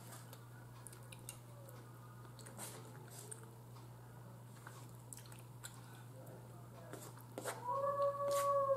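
Soft chewing and light clicks of a fork against a plate, then near the end a cat gives a long, loud meow that holds its pitch and starts to fall.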